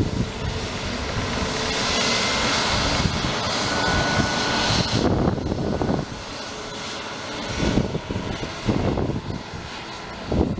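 Airbus A320 jet engines running at low power as the airliner taxis past, a steady jet hiss that fades sharply about five seconds in. Wind buffets the microphone in the second half.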